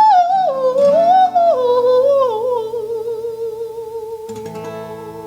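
A male singer's wordless 'ooh' melisma slides down into one long note with vibrato that slowly fades, over acoustic guitar chords. A new guitar chord is struck about four seconds in as the song winds down.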